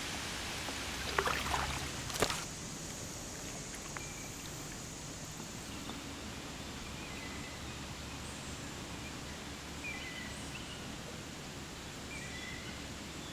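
Kayak paddle splashing in the river a few times between about one and two seconds in, over a steady outdoor hiss of water and light rain, with a few faint short chirps later on.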